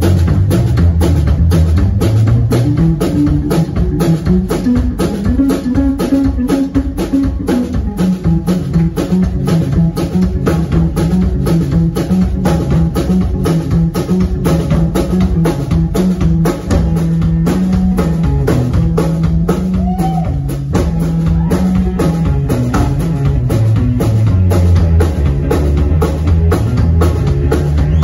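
Live rock band playing: a drum kit keeping a steady, even beat under a bass line and electric guitars.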